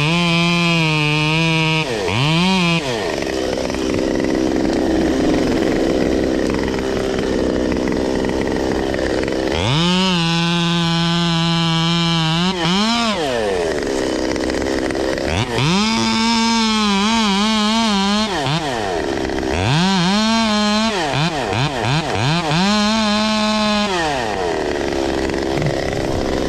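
Gas chainsaw revved to full throttle in about six bursts, its pitch dropping back toward idle between them, as it cuts through wood.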